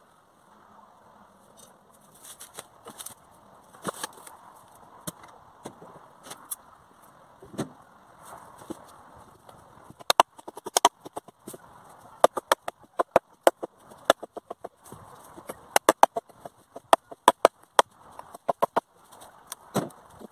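Firewood being broken and handled: quick runs of sharp cracks and wooden knocks, sparse at first and coming several a second from about halfway through.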